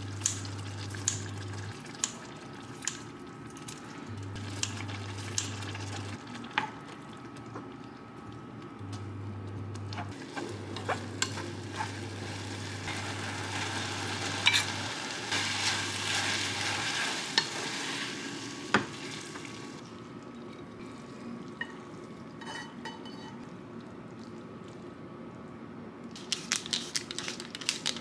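Glass noodles and vegetables sizzling in sauce in a frying pan while a spatula stirs them, loudest in the middle, with sharp snips of scissors early on. A low hum cuts in and out from the induction hob cycling, and near the end comes a quick run of fine grinding clicks from a pepper grinder.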